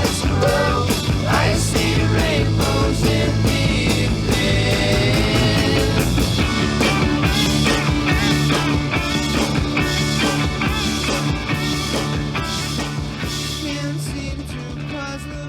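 Psychedelic rock music with a steady beat, fading out over the last few seconds.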